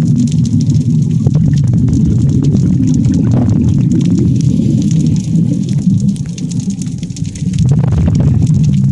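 Underwater sound picked up through an action camera's waterproof housing: a steady low rumble of moving water with many faint clicks and crackles, easing off for a couple of seconds past the middle.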